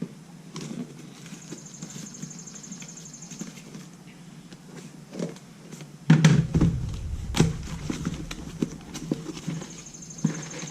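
A small parcel of scooter parts being opened by hand: scattered crinkling, clicks and taps of packaging, with a louder bump and rumble of handling about six seconds in.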